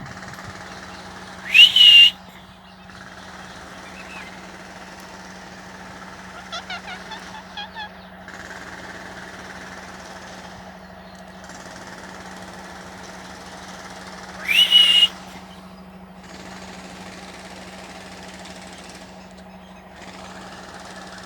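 Rose-ringed parakeet giving two loud shrill calls, each sliding up and then held, one near the start and one about two-thirds through, with a short run of quieter chirps between them. A steady low hum runs underneath.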